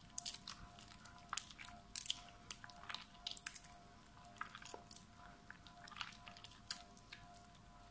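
Soaked, mushy soap squeezed and kneaded by hand in soapy water: irregular wet squishes and crackles.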